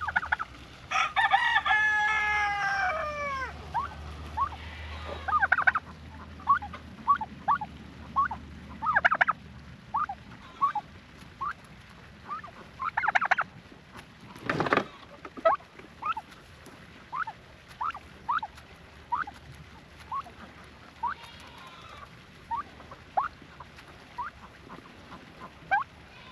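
A chicken calling: a loud drawn-out call that falls in pitch about a second in, then a long run of short, sharp clucks every half second or so as she eats from a hand. A brief rustle a little past halfway.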